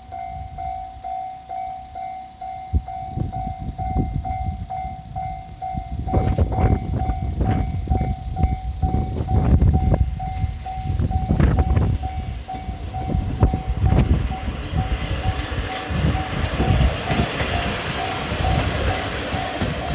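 Japanese level-crossing warning bell ringing steadily in a repeating pattern. Strong wind buffets the microphone in heavy low gusts, growing stronger about six seconds in. Near the end the rail noise of an approaching diesel train rises.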